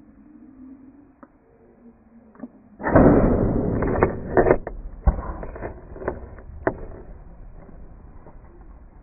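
A bow shot at a gemsbok drinking at a water trough, heard as a sudden loud burst about three seconds in that lasts about a second. Scattered knocks and thuds follow as the startled antelope bolt, then fade away.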